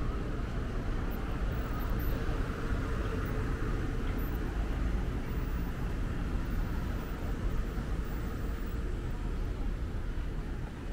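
Steady outdoor street ambience, a low even rumble of road traffic.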